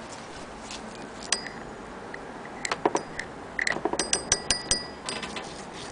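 Hand-cranked Singer 12K sewing machine being turned: sharp metallic clicks and clinks from its moving parts. The clicks are scattered at first, then come in a quick run of ringing ticks about four seconds in.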